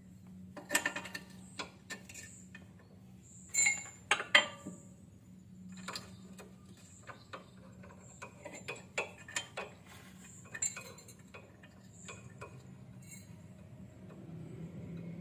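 Irregular metallic clinks and knocks of hand tools and suspension parts as a new stabilizer link is fitted to a car's front suspension, loudest about a second in and around four seconds in, over a steady low hum.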